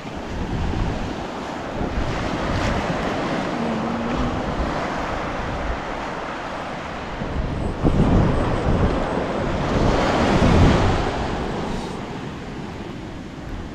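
Ocean surf washing onto a beach, with strong wind buffeting the microphone in low rumbles. The wash swells louder twice, about eight and eleven seconds in.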